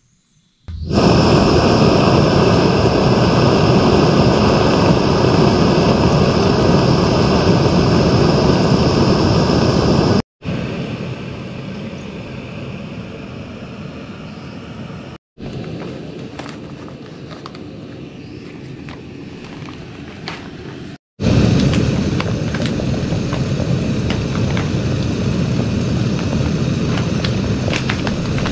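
Camp stove burner roaring steadily just after being lit. The sound breaks off abruptly three times, is quieter in the middle stretches, and has faint crackles in the last stretch.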